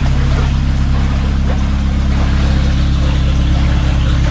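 A narrowboat's engine running at a steady low speed as the boat passes close by, a constant low hum.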